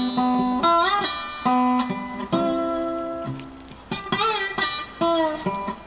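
Background music: acoustic guitar playing plucked notes, with several sliding notes.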